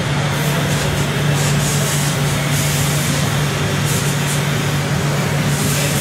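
Radio-controlled scale model trucks running: a steady low engine-like drone with a hiss over it, and higher hissing that comes and goes.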